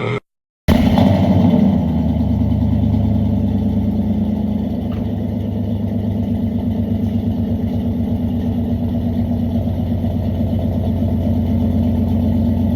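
Pickup truck engine idling on a cold start. It cuts in abruptly after a brief silence, is loudest for the first second or so, then settles into a steady, fast-pulsing idle.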